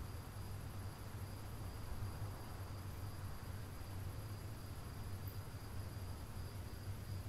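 Quiet background: a steady hiss and low hum with a thin, high-pitched steady whine, and no knocks or footsteps.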